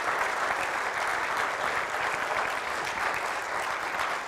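Lecture-hall audience applauding, a steady patter of many hands clapping that eases slightly near the end.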